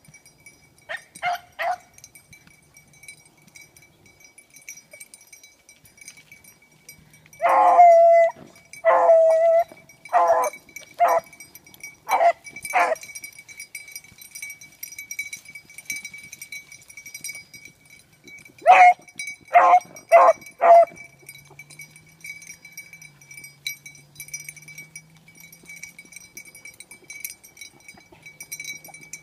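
Beagles baying while working a scent. There are three short barks just after the start, a run of longer, louder bawls from about seven to thirteen seconds in, and a quick set of four more about two-thirds of the way through.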